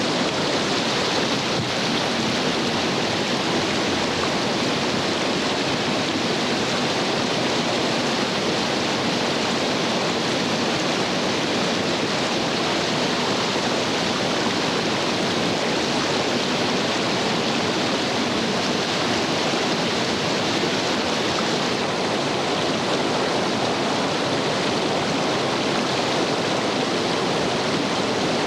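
Whitewater rapids on a creek, a steady, unbroken rush of water tumbling over rocks.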